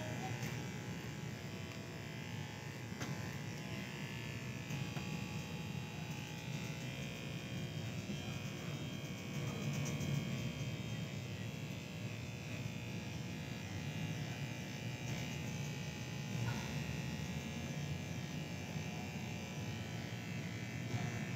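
Electric hair clippers buzzing steadily as they cut hair.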